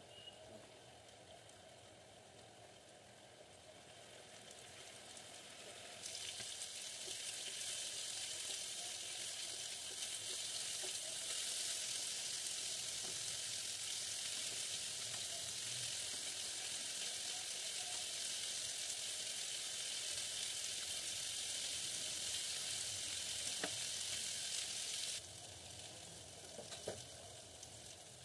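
Marinated chicken pieces sizzling in hot oil in a frying pan. The sizzle steps up louder a few seconds in and drops back near the end, with a couple of light clicks in the last few seconds.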